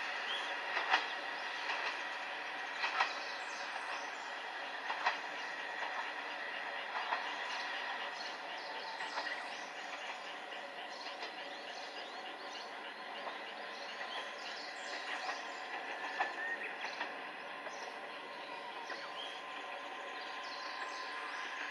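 Train running on the San'in Main Line: a steady rumble and hiss of wheels on rail with clicks from the rail joints, a few seconds apart at first, then quicker and fainter.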